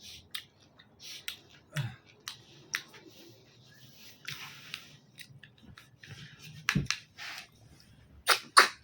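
Close-up sounds of a person chewing fried mushroom: irregular wet crackles and mouth clicks, with a few sharper, louder clicks near the end.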